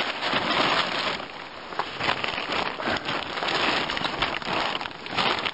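Plastic tarp crinkling and rustling as a rolled-up shelter flap is grabbed and undone, the crackle swelling and fading several times as it is worked.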